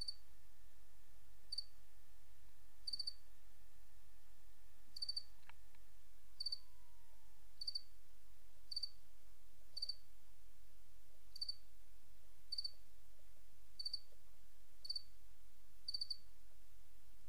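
Cricket chirping at night: short, high chirps repeated about once every second or so, over a steady low hum.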